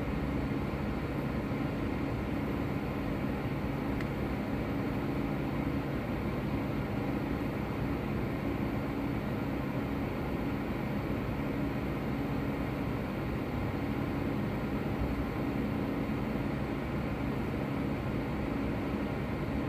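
Steady hum of an idling vehicle engine, with a few low, steady droning tones, heard from inside a car.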